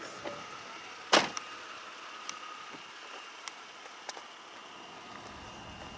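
A sharp clunk about a second in, the loudest sound, then a few light ticks over a faint steady whine, from the Mercedes CLK convertible's electro-hydraulic roof mechanism as the folded top and its cover settle into place.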